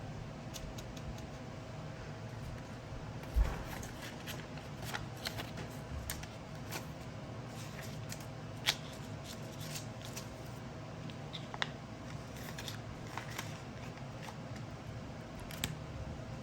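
Paper banknotes being handled and counted: soft rustles and scattered light clicks and taps, with a dull knock about three and a half seconds in and a sharp click near the middle, over a faint steady hum.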